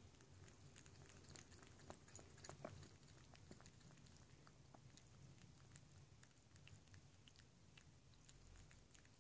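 A cat lapping liquid from a shallow bowl: faint, irregular small wet clicks, a few a second.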